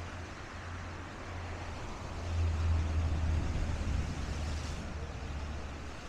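Ocean waves washing in and breaking against dark volcanic shore rocks: a steady rush of surf over a low rumble, which swells about two seconds in and then eases.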